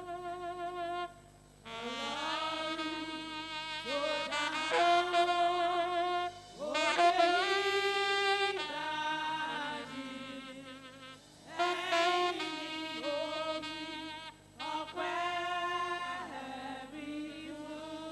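Saxophone playing a slow melody in phrases: notes scoop up into pitch, held notes waver with vibrato, and the phrases are broken by short pauses.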